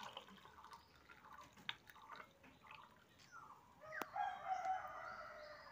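Butterfly pea flower tea poured from a ceramic cup into a glass, with a faint trickle and light clinks. About four seconds in there is a sharp clink, then a long drawn-out call from the background.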